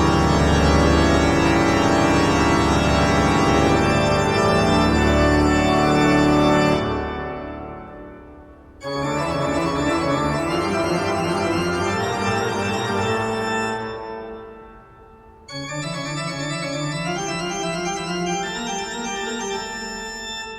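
Background keyboard music with sustained organ-like chords. It fades out twice, and each time a new passage starts abruptly, about nine and fifteen seconds in; it fades again near the end.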